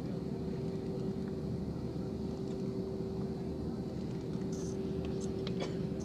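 Jet airliner engines running at low power, heard inside the cabin while taxiing: a steady low rumble with a constant whine, and a few faint ticks near the end.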